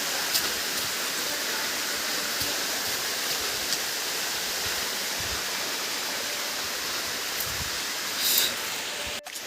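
Waterfall rushing steadily, an even roar of falling water. A short, louder scuffing noise comes near the end.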